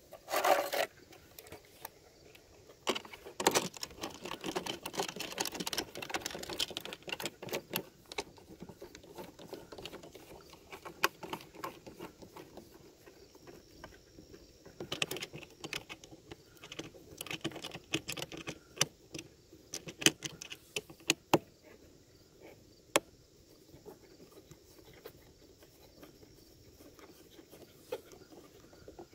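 Plastic canopy hatch of a Pro Boat UL-19 RC boat being fitted onto the hull and pressed into place by hand: scattered clicks, taps and rubbing of plastic, with a busier flurry of handling in the first few seconds.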